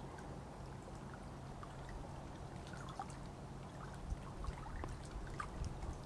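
Lake water lapping and trickling, a scatter of small irregular splashes and drips over a steady low background noise, with a few low thumps in the second half.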